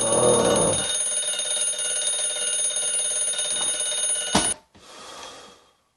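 Alarm clock ringing steadily and shrilly, then cut off abruptly with a click about four and a half seconds in.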